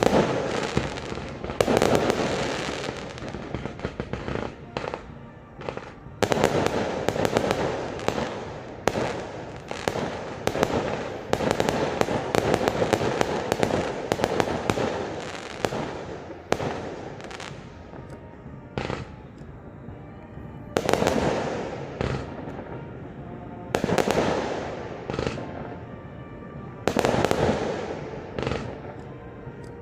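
Fireworks display: rapid volleys of bursts and crackling, thickest in a long barrage in the first half, with fresh barrages starting again several times later on.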